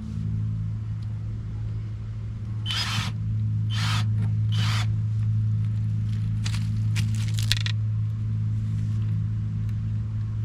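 Several short scraping, rustling handling noises, clustered between about 3 and 8 seconds in, as sections of a flexible dryer-vent brush rod are screwed together, over a steady low hum.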